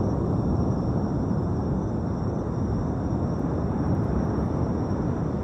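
Wind buffeting the phone's microphone: a steady, choppy low rumble. Two faint, steady high-pitched tones run underneath.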